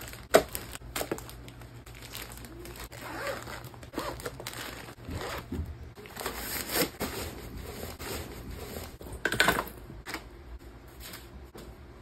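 Nylon packing cubes and plastic snack wrappers being handled and pressed into a suitcase: irregular rustling and crinkling with small knocks, a sharp knock about half a second in and a louder burst of rustling about nine seconds in.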